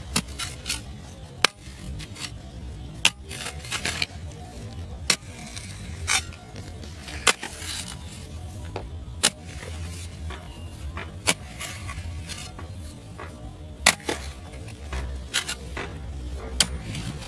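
A metal digging tool jabbed and twisted down into an earth bank to dig a hole: sharp strikes every second or two, with gritty scraping of soil between them.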